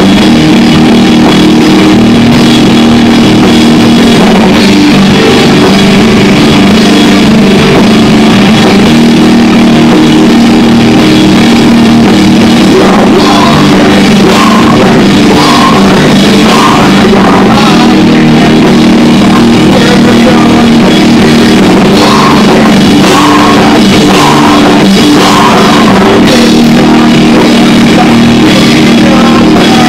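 Live rock band playing loud, heavy rock on electric guitars, bass guitar and a drum kit. The recording stays pinned near full loudness throughout.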